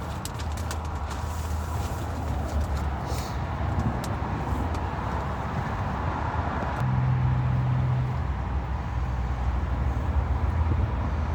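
Steady low rumble of vehicle noise, with a hum that swells briefly a little past halfway and a few light clicks in the first seconds.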